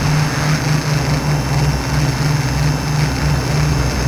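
Multirotor drone's electric motors and propellers whirring steadily, heard close up from the onboard camera, with a low hum that wavers slightly in pitch.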